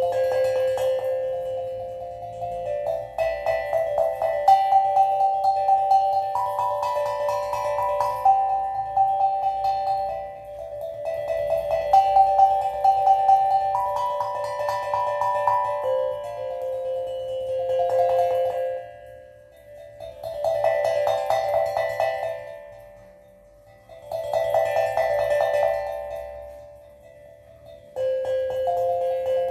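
Steel tongue drum played slowly, its struck notes ringing and overlapping in melodic phrases over a held low note, with short pauses between phrases.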